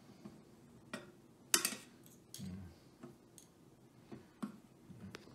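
Metal fork clinking against a stainless steel pan of melted chocolate: a handful of short, sharp clicks, the loudest a quick cluster about a second and a half in.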